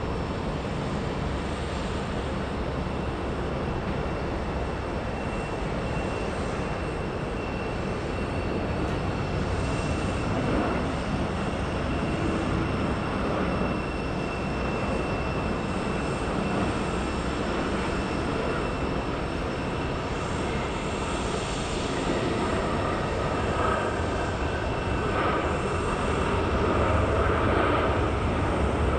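Boeing 737 jet airliner's engines during approach and landing: a steady jet noise with a thin high whine over it, growing louder near the end as the aircraft rolls out on the runway.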